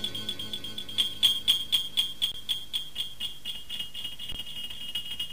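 Electronic soundtrack music: a thin, high-pitched ringing tone pulsing at about four beats a second, bell- or beeper-like, with no bass, which drops away at the start.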